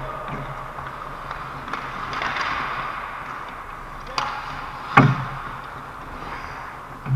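Ice hockey play close to the net: skates scraping the ice, then two sharp knocks of stick or puck about four and five seconds in, the second one louder.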